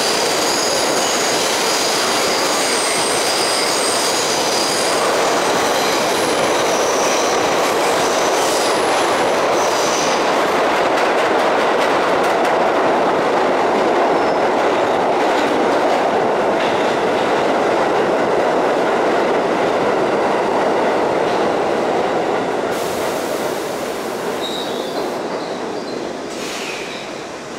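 New York City subway G train running through a tunnel: a steady rumble of wheels on rail with clicks over rail joints and a high wheel squeal for the first ten seconds or so. The noise fades over the last few seconds as the train slows into a station.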